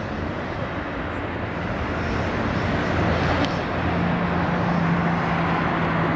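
Jet airliner engine noise, growing louder over the first few seconds, with a steady low hum joining in about four seconds in.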